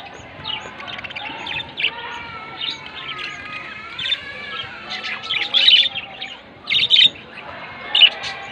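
A flock of pet parakeets chirping and chattering continuously, with several louder, sharper calls in the second half.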